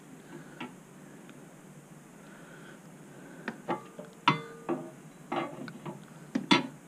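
Steel motorcycle mainstand clinking and knocking against the frame's mounting lugs as it is offered up for a first fit. A handful of sharp clinks, some with a short metallic ring, come in the second half, the loudest near the end.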